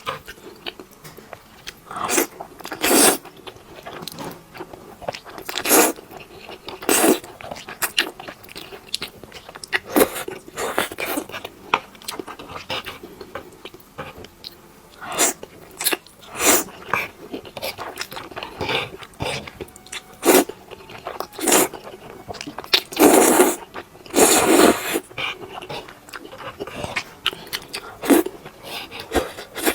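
A person eating close to the microphone: irregular bites and chewing with some crunch, a few seconds apart. Two louder, longer bursts come a little after the middle.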